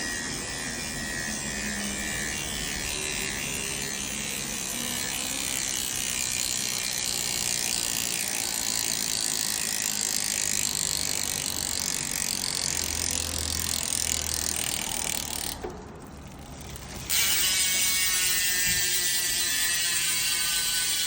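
Road bike's Hunt rear freehub buzzing steadily as the wheel spins freely, its pawls ratcheting. The buzz drops away for about a second and a half, around sixteen seconds in, then starts again.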